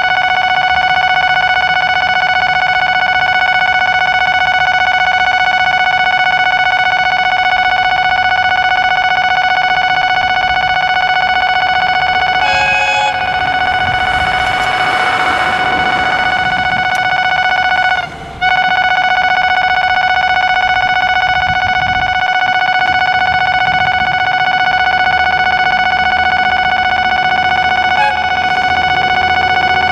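Loud, steady electronic warning tone of a railway crossing alarm, sounding for an approaching train. A burst of rushing noise passes through it about halfway in.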